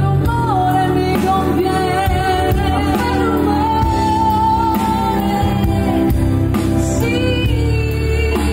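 Live pop band of keyboards, electric guitars, bass and drums playing a slow song, with a female voice singing long held notes that slide between pitches.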